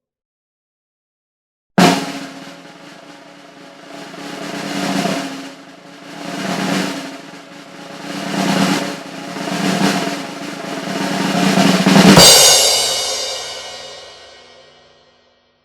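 Snare drum roll announcing a show, starting with a sudden hit about two seconds in and rising and falling in several swells. It builds to a loud final hit that rings and fades over about three seconds.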